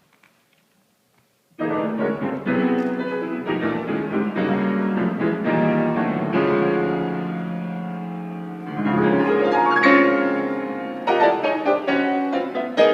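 Piano playing chords and a melody, starting suddenly about a second and a half in, with a long held chord midway and quicker notes near the end.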